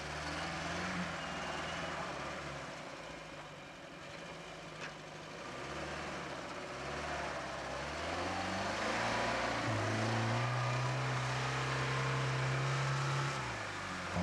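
UAZ-469's four-cylinder petrol engine pulling under load through mud and water, its revs wandering at first, then rising about eight seconds in and held high, with a brief drop near the end before it picks up again.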